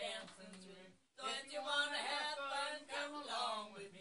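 An older man and woman singing a song together, with a short break about a second in before the singing picks up again.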